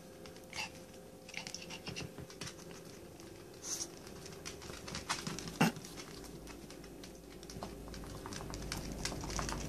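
Dogs' claws clicking and scratching on a tile floor as a Jack Russell puppy and a larger dog move about, with light, scattered ticks and one sharper click a little past halfway.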